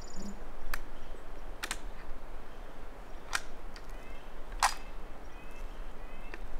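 Four sharp clicks, unevenly spaced over the first five seconds, with a few faint, short bird chirps in between.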